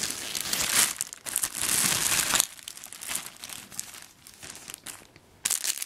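Thin plastic packaging bags crinkling and rustling as they are handled, loudest for the first two and a half seconds, then quieter and more scattered.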